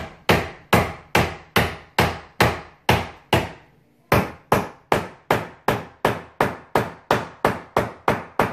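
A hammer striking a wooden framing stud over and over to knock it sideways into a tight joint. The blows are sharp and steady, about two and a half a second, with a short pause a little before halfway.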